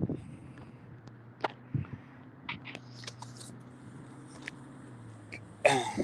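A car engine running steadily at low revs, with scattered light clicks and knocks over it.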